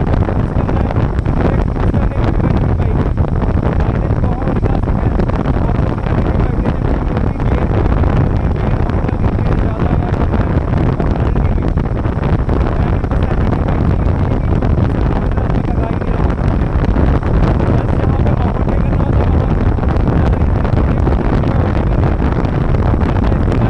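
Royal Enfield single-cylinder motorcycle riding along at a steady pace, engine and exhaust running evenly under heavy wind noise on the microphone.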